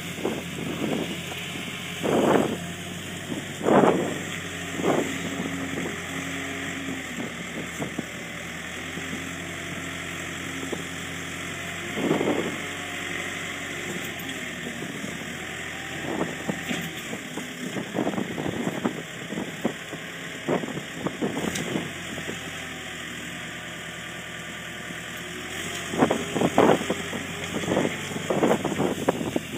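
Zettelmeyer ZL 1001 wheel loader's diesel engine running steadily while it works a silage grab, its pitch shifting now and then. Several short loud bursts come near the start and again in the last few seconds.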